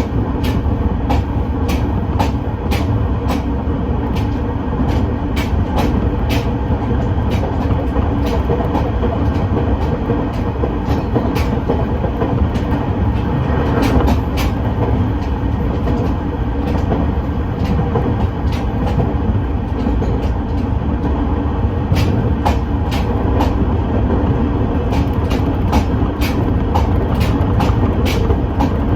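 A train running on rails: a steady rumble with regular clicks of the wheels passing over rail joints, a few a second.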